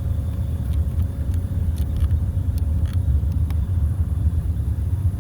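A steady low rumble with a few faint, light clicks scattered through it.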